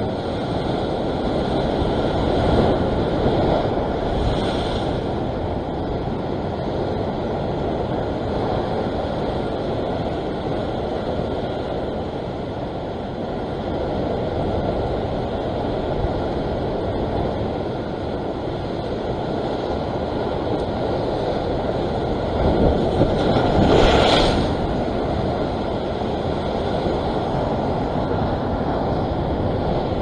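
Ocean surf rushing and washing over a rock ledge in a steady roar, with a bigger wave crashing about three quarters of the way through.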